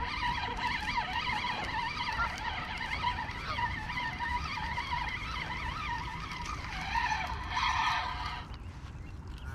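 A flock of geese honking and calling, many overlapping calls at once, with a louder cluster of calls about three-quarters of the way through, over a steady low rumble.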